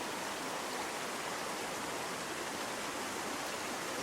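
Flood-swollen creek rushing steadily with high, fast floodwater flow: a constant, even roar of water.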